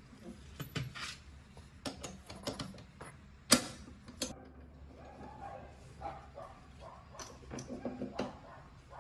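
Clinks and knocks of metal being handled at a stopped metal lathe as a turned steel cylinder is gripped and taken out of the chuck, with one sharp clank about three and a half seconds in.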